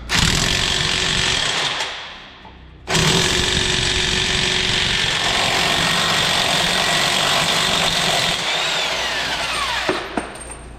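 Impact wrench hammering on a front hub nut to break it loose and spin it off, in two runs: a short burst, then a longer run of about seven seconds that ends with a falling whine.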